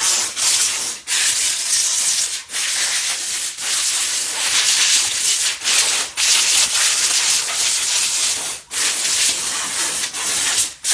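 Handheld steam cleaner jetting steam through its pointed nozzle, a loud steady hiss that drops out briefly about half a dozen times.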